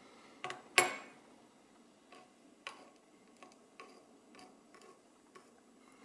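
Irregular light clicks and ticks of small metal lock parts being handled, with two sharper clicks in the first second, the second the loudest.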